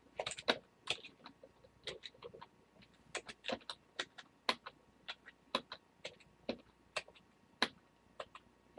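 Computer keyboard keys clicking irregularly, a few sharp presses a second.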